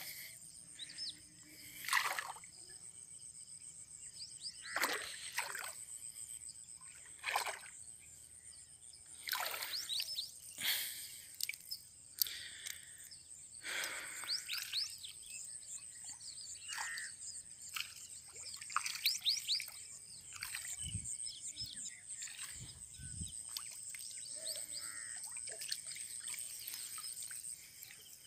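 Lake water sloshing and splashing at irregular intervals as a person wades and lifts a gill net out of the water, over a steady high insect buzz that stops near the end and a few bird chirps.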